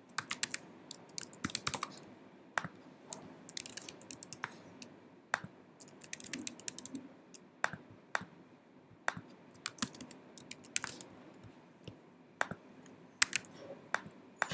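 Typing on a computer keyboard: irregular runs of quick key clicks with short pauses between them, as a sign-up form is filled in.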